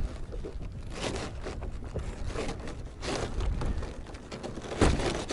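Rustling, scraping and light knocks of objects being handled, with a sharper knock near the end.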